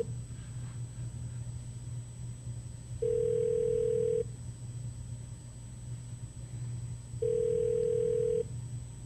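Telephone line tone while a call is on hold during a transfer: a single steady beep about a second long, twice, roughly four seconds apart, over a low line hum.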